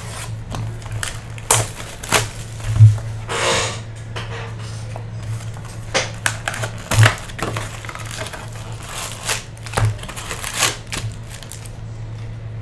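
Hands opening a sealed cardboard Topps Chrome trading-card box and pulling out and stacking its foil card packs: irregular crinkling, scraping and tapping. A steady low hum runs underneath.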